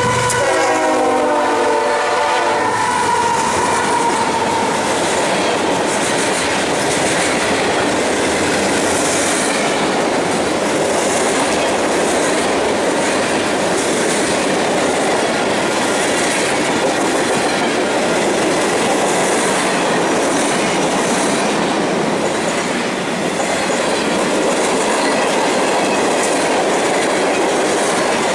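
Union Pacific diesel freight train passing close by: the locomotive horn chord drops in pitch as the lead unit goes past and fades out about three seconds in. Then a long string of tank cars rolls by with a steady rumble and the clickety-clack of wheels over rail joints.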